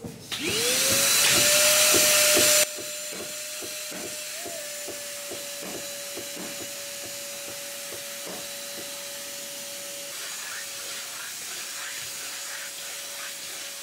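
Wet/dry shop vacuum motor starting and spinning up to a steady whine, used to clean sanding dust off a fiberglassed boat roof. A loud rush of air for the first couple of seconds drops away suddenly, leaving the motor running steadily with a softer hiss and a scatter of light knocks.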